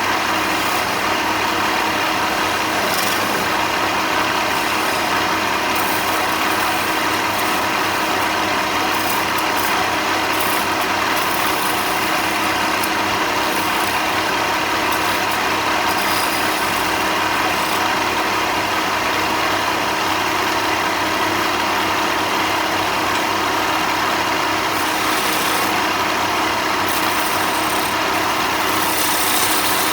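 Woodworking power tool running steadily, a constant machine hum with no break or change.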